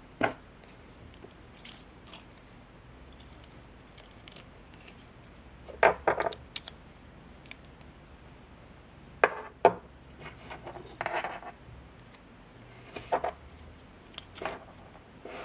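Small plastic and metal parts of a carburettor's automatic choke clicking and knocking together as they are handled and fitted back into place: a handful of sharp clicks spread out, with a short rattle about eleven seconds in.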